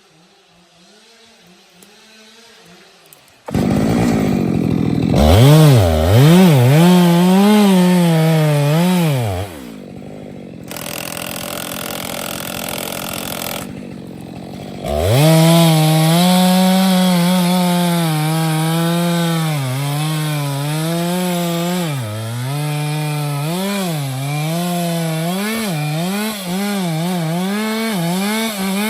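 Chainsaw cutting into a large tree trunk, starting a few seconds in. Its engine pitch dips and recovers again and again as the chain bogs down and frees up in the cut. For a few seconds mid-way the engine tone gives way to a steadier, hissier cutting noise.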